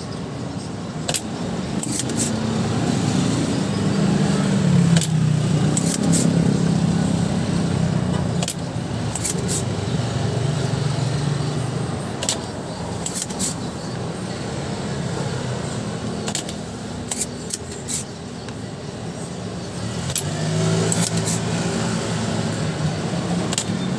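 Spring-loaded desoldering pump snapping with repeated sharp clicks as solder is sucked off the amplifier's power transistor pins. A low rumble swells and fades underneath.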